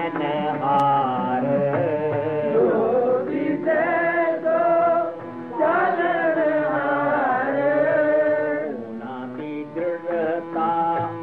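Sikh devotional hymn singing (kirtan): a voice sings in long, slowly gliding notes over steady instrumental accompaniment, with a brief pause about halfway through.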